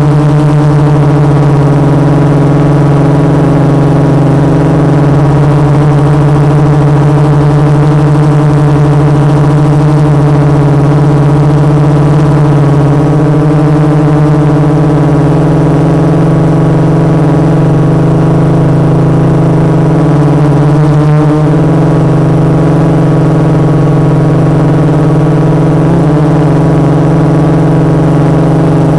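Quadcopter's four Multistar 2212 920kv brushless motors spinning 12-inch carbon-fibre propellers, a loud steady hum while hovering, heard close from the onboard camera. The pitch holds nearly constant, with a brief wobble about two-thirds of the way through.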